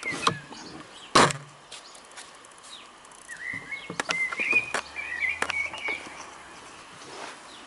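Two sharp clicks, one about a quarter second in and a louder one about a second in, then birds chirping and singing for a few seconds midway.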